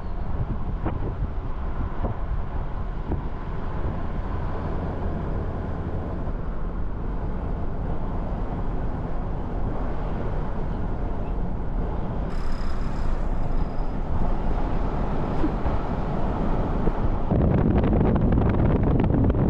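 Vehicle driving along, a steady low engine and road rumble with wind buffeting the microphone, the wind growing louder near the end.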